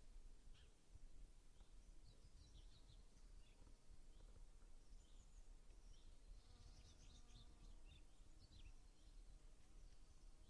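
Faint spring outdoor ambience: scattered birds chirping in short high notes, busiest a little past the middle, over a steady low rumble.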